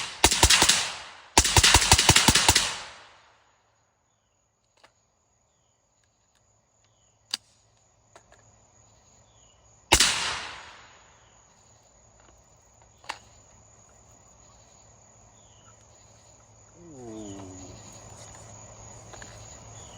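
Short-barreled AR-15 rifle firing two quick strings of rapid shots in the first three seconds, then a single shot about ten seconds in. Crickets chirp steadily in the pauses after.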